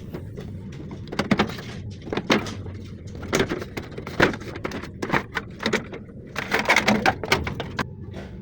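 Irregular knocks and clatter, some in quick runs, over a low steady hum.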